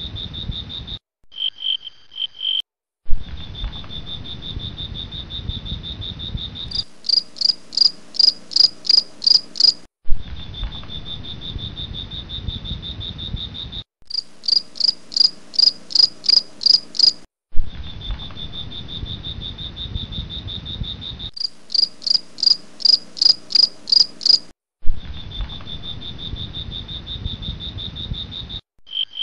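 Crickets chirping: a steady high trill alternates every few seconds with sections of louder pulsed chirps, about three a second. Each section starts and stops abruptly, with short silent breaks between them.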